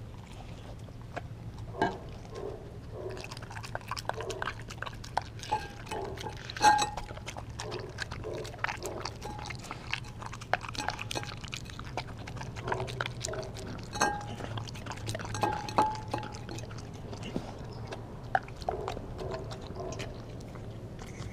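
A pit bull–German shepherd mix dog licking and chewing raw meat from a glass dish: a steady run of wet licks and bites, with teeth and tongue clinking against the glass so that it briefly rings.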